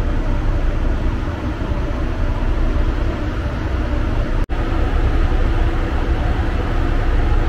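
Passenger ferry Mermaid II underway: a steady low drone of its engines with a hiss over it. The sound cuts out for an instant about halfway through.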